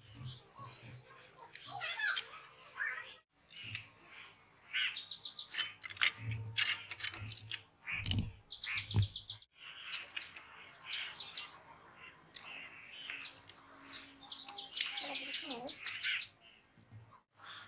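Small birds chirping, with repeated short calls and fast trills. A few low knocks from the metal motor being handled come about six to nine seconds in.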